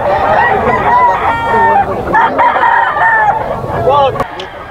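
Several gamecocks crowing, their crows overlapping one another. The crowing stops about four seconds in, followed by a single sharp click.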